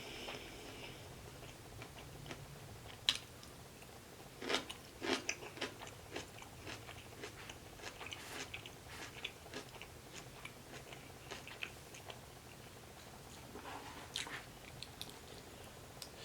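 A person chewing food close to the microphone, with soft wet mouth clicks scattered throughout and a few sharper clicks about three and five seconds in.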